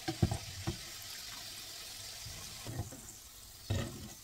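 Seed oil sizzling steadily around small struffoli dough balls deep-frying in a pan, with a few knocks of a metal skimmer against the pan as the fried balls are scooped out. The hiss thins a little after about two and a half seconds.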